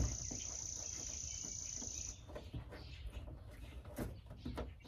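An insect trilling: a steady, high, even buzz that stops a little over two seconds in. Soft rubbing and a couple of light knocks follow near the end as fingers work on the truck's door paint.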